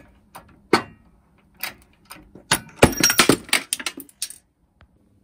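Steel pinion gear being pressed off a 755-size drill motor's shaft with a drift punch in a bearing separator under a shop press. There are two sharp metallic clicks, then a run of metal clinks and clatter lasting about two seconds as the freed gear, motor and separator parts knock together.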